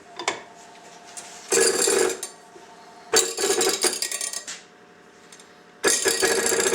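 Three bursts of metallic clattering and ringing, each about a second long: a torque tool is being worked against the UFO orbital attachment's clutch to make it slip. This is a clutch slip-torque test, and the clutch comes in at about 90 foot-pounds.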